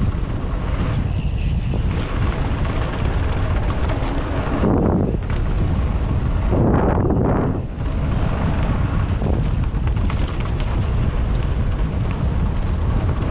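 Wind rushing over a helmet camera's microphone as a mountain bike's tyres roll fast over a loose gravel trail. The tyre noise swells twice, about five and seven seconds in.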